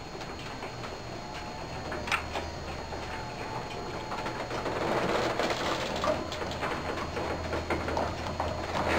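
A click about two seconds in, then the Martin DC3700e-0 garage door opener running as the door travels open, the motor and drive noise growing louder about halfway through.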